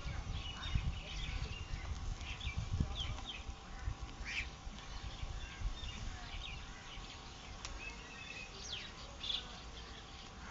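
Birds chirping: many short calls and quick whistled notes, over a low rumble that eases off toward the end.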